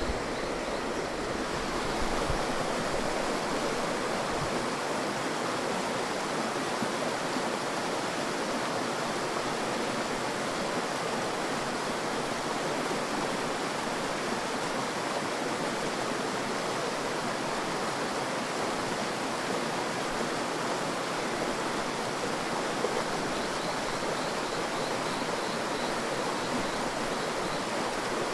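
Steady rain falling, an even hiss that holds unchanged throughout.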